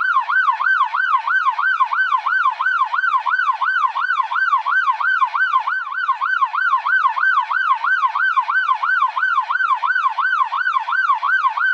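Police car siren in a fast yelp, its tone sweeping rapidly up and down about three times a second in an even, unbroken pattern.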